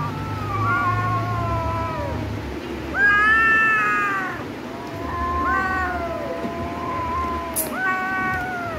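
Kittens meowing in a string of long, drawn-out calls, one after another, each sliding down in pitch at its end, as they play-fight.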